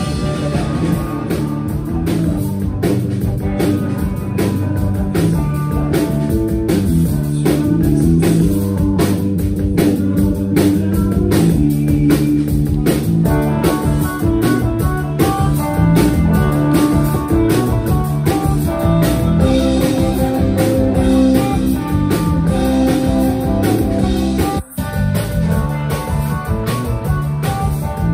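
Live rock band playing an instrumental passage: Stratocaster-style electric guitar lines over bass and a drum kit, with no singing. The sound drops out for a split second about three-quarters of the way through.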